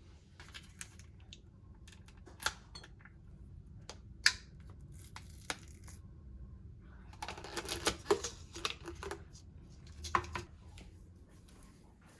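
Small objects being handled: scattered sharp clicks and taps, with a burst of rustling and clattering about seven seconds in.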